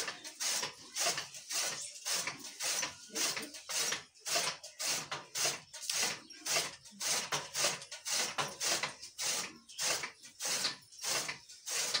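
Hand-cranked chaff cutter chopping green berseem clover and grass: the flywheel's blades slice through the fodder in quick rhythmic chops, about two a second.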